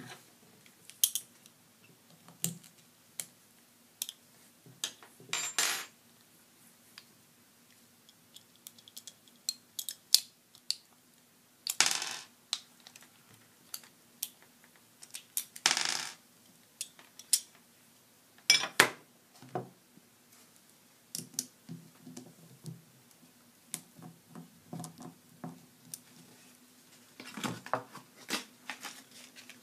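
Small metal and plastic parts of a Conair curling iron clicking and clinking as it is worked on by hand. There are a few longer half-second scrapes among the clicks, and a faint steady hum underneath.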